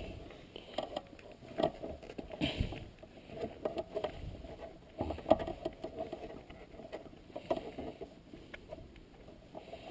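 Rubber shifter dust boot being worked down over the shifter by hand: irregular scuffs, taps and short squeaks of rubber rubbing on the shifter.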